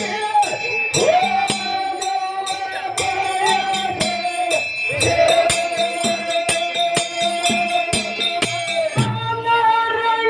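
Kannada dollina pada folk song: a male singer holding long, wavering high notes over a steady beat of sharp clicking percussion. Near the end the held note breaks off and the texture changes.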